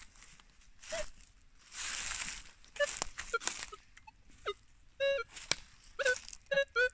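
Metal detector beeping as its coil is swept over the ground: short, buzzy target tones at one mid pitch, one dropping lower, coming more often toward the end as the coil passes over buried metal. A brief rustle of the coil or feet through dry leaves about two seconds in.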